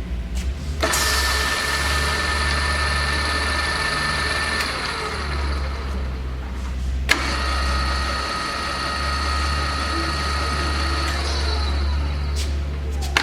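Jet JRD-700 radial arm drill press running: a steady motor hum under a whine with several steady tones. About seven seconds in there is a sharp click and the whine changes pitch. Near the end the tones slide down as the spindle slows.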